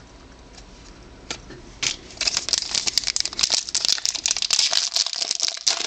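Trading-card pack wrapper being crinkled and torn open, a dense run of crackles starting about two seconds in after a few isolated clicks.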